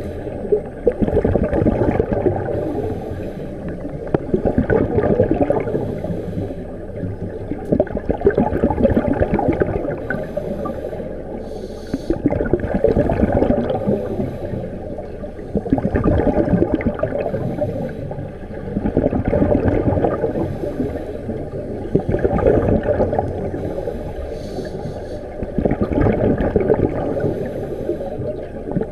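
Scuba divers breathing through regulators, heard underwater: bubbling exhalation bursts swelling about every three to four seconds over a steady low rush.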